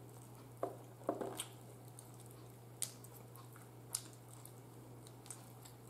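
Wet mouth smacks and clicks from eating chicken wings, a handful of short, sharp ones scattered through, over a faint steady low hum.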